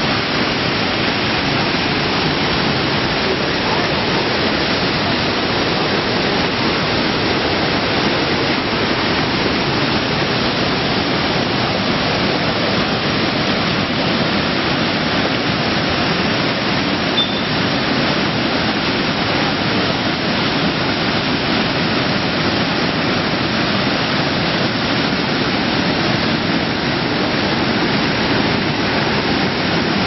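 Waterfall and stream in spate: a steady, loud rush of muddy floodwater pouring over a stone ledge and rocks.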